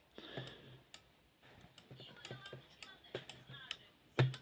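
Hetronic radio remote control system on the test bench, giving irregular sharp switching clicks, about a dozen, some with a brief low hum; the loudest click comes near the end.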